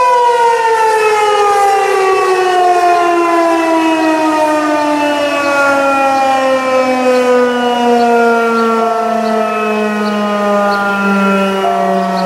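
Outdoor civil defense warning siren winding down, its loud wail sliding steadily lower in pitch.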